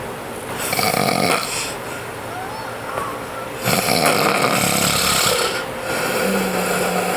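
Loud snoring: a sleeper giving three long snores with short pauses between.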